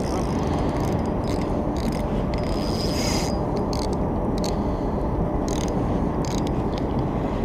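Fishing reel being worked against a snagged line: scattered short clicks and scrapes from the reel over a steady low rumble.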